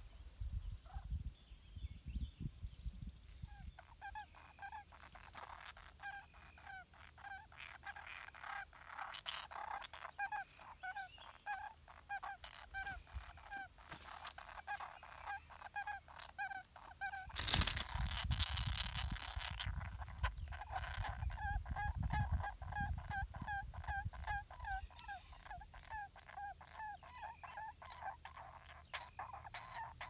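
Lineated barbet calling: a long run of short, hooting notes, about two or three a second. About halfway through, a brief loud rush of noise covers the calls for a moment.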